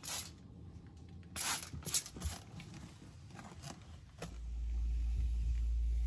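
A trigger spray bottle squirts cleaner onto a refrigerator door in several short hissing sprays. After that a cloth rubs lightly, and a steady low hum fades in about four seconds in and becomes the loudest sound.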